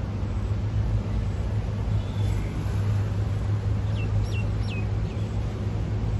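Steady low rumble of wind and fast-flowing floodwater, with three quick, high, falling bird whistles about four seconds in.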